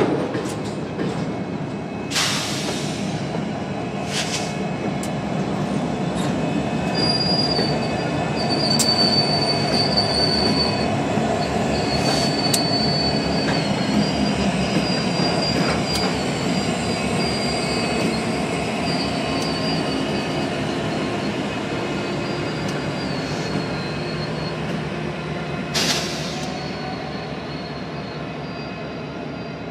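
Slow-moving freight train rolling past: loaded lumber flatcars and then Union Pacific diesel locomotives, with a steady rumble. A thin, high wheel squeal runs through the middle, and a few sharp bangs are heard, one near the start, one in the middle and one near the end.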